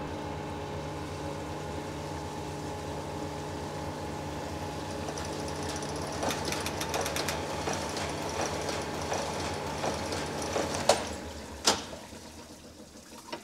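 Vertical cylinder honing machine running 600-grit CBN finish stones through an engine cylinder bore at very light pressure: a steady motor hum with a scratchy hiss from the stones. About eleven seconds in it stops with two sharp clacks, and the sound dies away.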